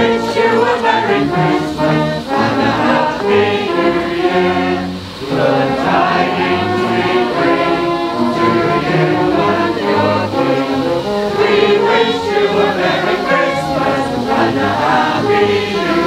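Brass band with cornets playing, with a group of voices singing along.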